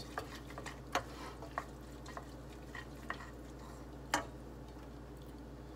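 A few light clicks and taps of cutlery against a dish, scattered and irregular, the sharpest about a second in and about four seconds in, over a steady low hum.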